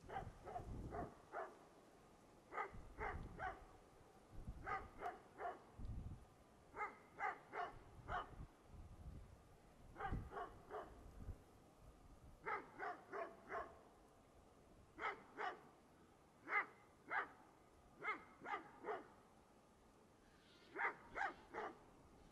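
Dogs barking in repeated bouts of about three to five quick barks, with short pauses between bouts.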